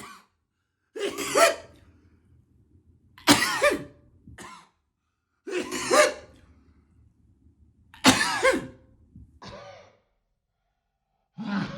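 A man sneezing over and over, four loud sneezes about two to two and a half seconds apart, with a couple of short, fainter sounds between them. The sneezes are set off by tickling the inside of his nose with a koyori, a twisted paper string.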